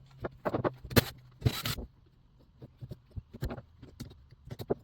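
Hand tools and small metal engine parts handled on a workbench while a chainsaw's carburetor is being taken off: scattered clicks and knocks, the loudest about a second in, with a short scrape about a second and a half in, then fainter clicks.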